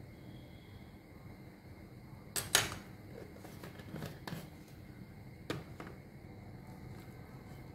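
A metal spoon clicking against a ceramic plate: a few sharp clicks, the loudest a quick pair about two and a half seconds in, over faint room noise.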